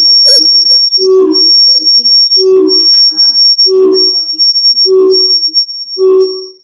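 Film soundtrack: a steady high whistling tone over a low pitched pulse that repeats about once a second, six times, cutting off suddenly at the end.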